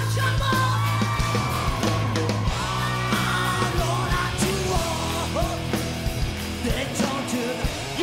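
Punk rock band playing live: electric guitars, bass and drums under a male lead vocal singing the song.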